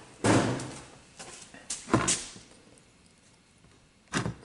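Three bouts of metal knocking and clatter as an aluminum small-engine cylinder head is picked up and handled on a workbench, with pliers knocking against it.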